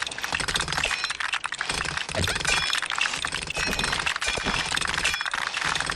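Loose plastic LEGO pieces clattering and clinking continuously as a freshly opened parts bag is emptied out and the pieces are spread by hand.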